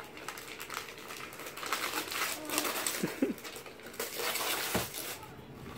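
Gift wrapping paper crinkling and tearing as a present is unwrapped by hand, in a run of short rips.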